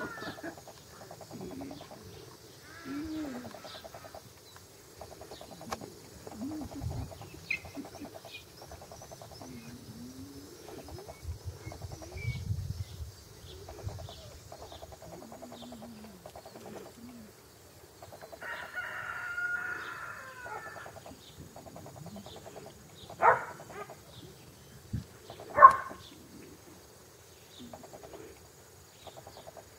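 Border collie puppies grumbling and play-growling as they wrestle with a person, then two sharp yips near the end. A rooster crows once in the background about two-thirds of the way through.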